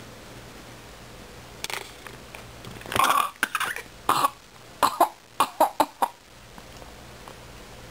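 A baby's pretend coughs: a few small coughs, then a quick run of about five short coughs in a row just past halfway through.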